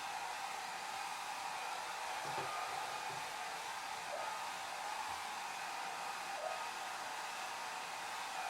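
Hair dryer running steadily: an even, unbroken rush of air, with most of its sound in the upper range and little low hum.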